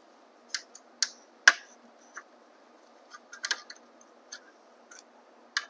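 Scattered sharp clicks and light taps of a small hex key and bolts as the 3 mm bolts are worked out of an e-bike's bash guard; the loudest click comes about one and a half seconds in, with a quick cluster about three and a half seconds in.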